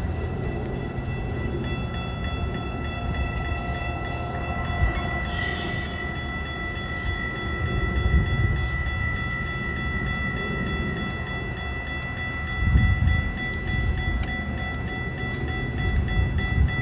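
Metra bilevel commuter train rolling along the tracks: a steady low rumble, with brief hissing bursts about four seconds in and again near the end. A steady high-pitched tone sounds over it throughout.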